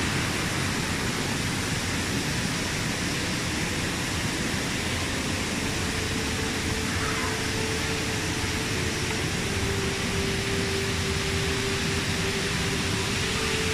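Steady rushing noise of a waterfall.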